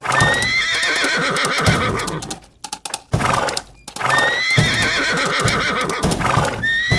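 Horse neighing over fast clip-clopping hooves. The same sequence plays twice, with a short break in the middle.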